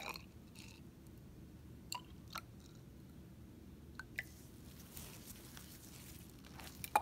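Water poured from a glass test tube into a glass graduated cylinder: a few faint, sharp clicks of glass touching glass, and a soft trickle about five seconds in.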